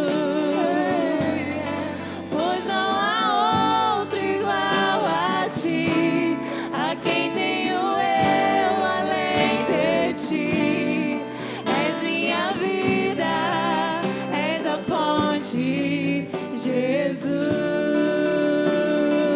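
Live acoustic gospel worship music: a singer's voice with wide vibrato over sustained acoustic instrument accompaniment.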